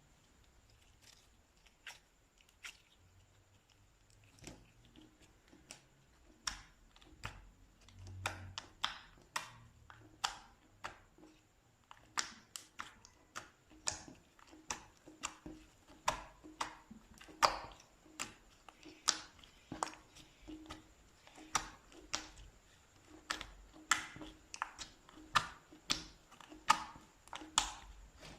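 Slime being pressed and worked by hand, making sharp clicking pops. The pops are sparse at first and come about one or two a second from a few seconds in.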